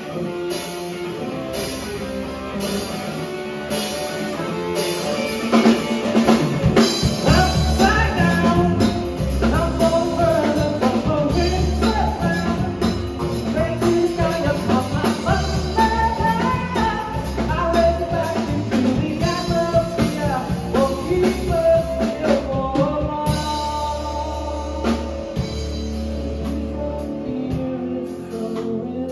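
Live rock band of drum kit, electric guitar and electric bass playing a song, with steady cymbal strokes. It starts sparse and fills out and grows louder about five seconds in, with a pulsing bass line underneath.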